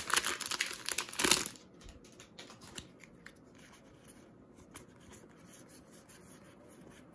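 Foil booster-pack wrapper of a Magic: The Gathering pack being torn open and crinkled for about the first second and a half. After that, faint ticks of the playing cards being handled and fanned.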